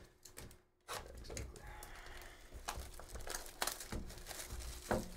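Cellophane shrink-wrap crinkling and tearing as a trading card box is unwrapped, with sharp clicks and taps of the cardboard box being handled, the loudest taps in the second half.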